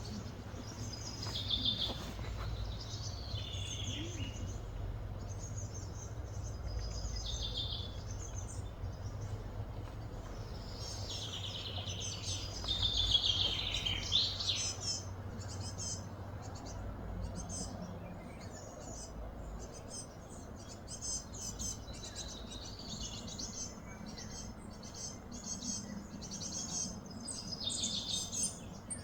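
Birds chirping and calling again and again, with the loudest run of calls about halfway through, over a steady low background rumble.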